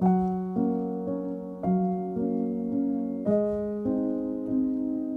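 Background piano music: a gentle, slow piece with fresh notes about every half second and a new chord struck about every second and a half.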